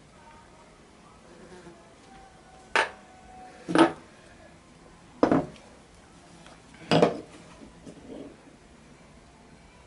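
Metal tools and parts, such as a drill chuck, clanking as they are picked up and set down on a workbench. There are four sharp clanks a second to a second and a half apart, the first a little under three seconds in.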